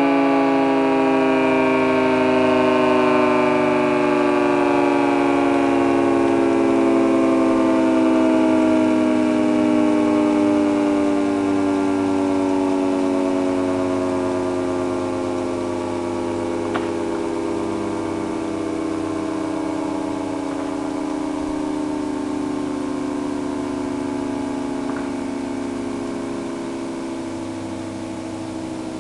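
Federal Signal 3T22 three-tone outdoor warning siren winding down at the end of its test: its chord slowly falls in pitch and fades as the rotor coasts down. A low steady hum runs underneath.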